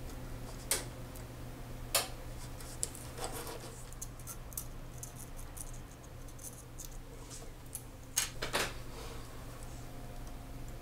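Steel tweezers and small brass clock wheels clicking and tapping against the brass plate of a carriage clock movement as the wheels are fitted. Sharp clicks come about a second and two seconds in, faint quick ticks follow through the middle, and two louder clicks come near the end, over a steady low hum.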